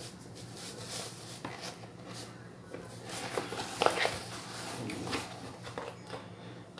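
Small handling noises of a screwdriver working the screws that hold a die-cast figure to its display base: scattered clicks and scrapes, with a sharper knock about four seconds in.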